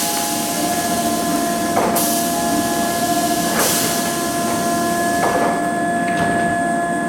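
A train's door signal sounding, its pattern repeating about every 1.7 seconds over steady tones.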